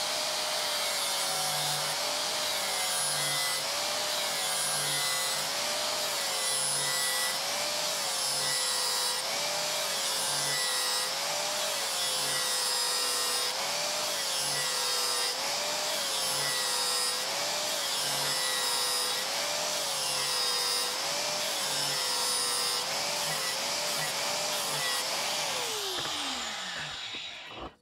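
Angle grinder with an 80-grit flap disc grinding the cutting edge of a steel lawn mower blade back to a semi-point, the motor's pitch dipping under load with each pass, about every second and a half. Near the end it is switched off and winds down.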